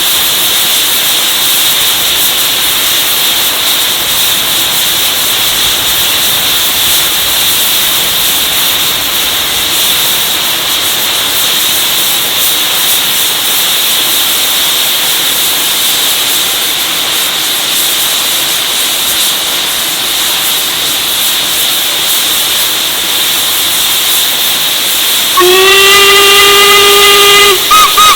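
Steady loud hiss of steam from an LMS Stanier Black 5 steam locomotive. Near the end its deep steam whistle sounds one blast of about two seconds, finishing in a couple of quick toots.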